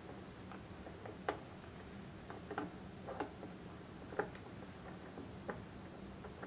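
Small, irregular metallic ticks, roughly one every half-second to second, as the adjusting screw of a Kennametal Modbore simultaneous adjusting blade set is turned by hand with a hex key, drawing the two blades toward each other.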